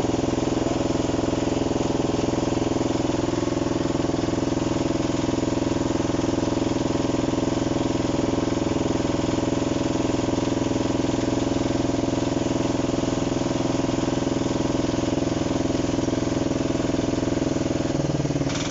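Heavy diesel engine running at a steady speed, its note shifting briefly near the end.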